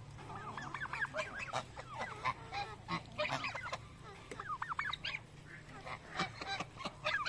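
Domestic geese honking and calling, many short rising-and-falling calls overlapping from several birds at once.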